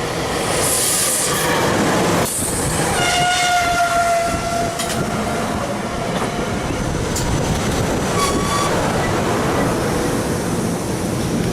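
SEPTA Regional Rail train coming into the station on the Paoli/Thorndale Line, with loud steady wheel-on-rail rumble. About three seconds in, a pitched tone sounds for roughly two seconds, sinking slightly in pitch, and a short higher tone comes near the end.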